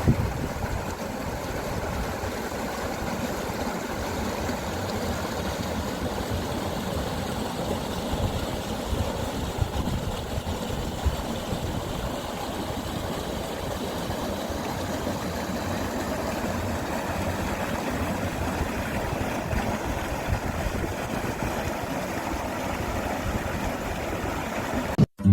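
Steady rush of a mountain stream flowing through the frozen winter valley.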